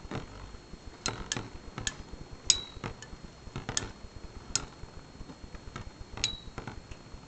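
Two Beyblade spinning tops, Lightning L-Drago and Cyber Pegasus, spinning against each other and clacking together in irregular sharp clicks. A couple of the hits, about two and a half seconds in and again about six seconds in, ring briefly like metal.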